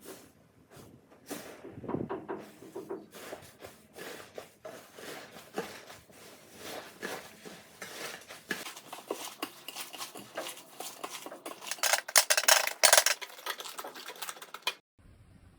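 Slime being worked by hand, giving a run of small pops, clicks and crackles, with a denser, louder stretch near the end.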